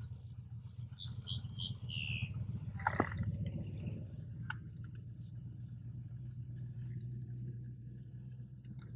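Small boat outboard motor running steadily at low speed, with a few short high chirps about a second in and a single sharp knock about three seconds in.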